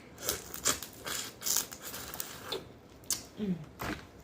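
Close-up eating noises of a crawfish being broken apart and its head sucked: a string of irregular wet clicks, cracks and slurps, with a short falling vocal sound about three and a half seconds in.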